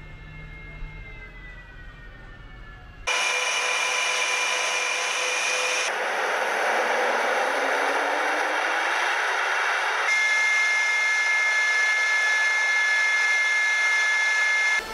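Su-35S fighter's twin turbofan engines running on the ground: a loud rush with high steady whining tones. It is quieter for the first three seconds, with the whine falling slowly, then jumps louder, and the tone changes abruptly twice more, about six and ten seconds in.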